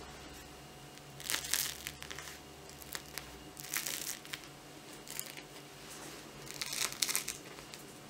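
Crisp crust of freshly baked bread loaves crackling as a hand presses and handles them, in about four short crunchy bursts.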